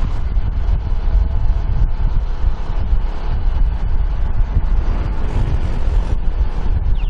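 Wind buffeting the microphone of a camera moving along a road, a heavy, steady low rumble.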